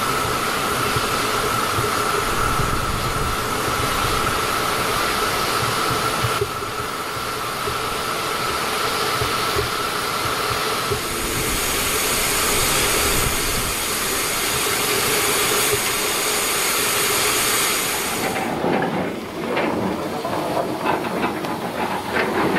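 Small one-foot gauge steam locomotive hissing steam steadily, with a steady high tone running through the hiss. About eighteen seconds in, the hiss falls away and irregular knocks and rattles follow as the locomotive is pushed round on a hand-turned turntable.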